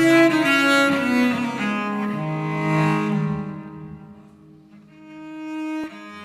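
Cello played with the bow in slow, held notes that swell and fade. The playing drops to its softest about four and a half seconds in, then a new note swells up.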